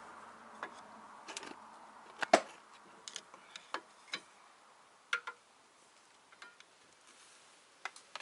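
Scattered light clicks and knocks of hand tools and metal parts being handled during rear parking-brake shoe work, with one sharper knock a little over two seconds in.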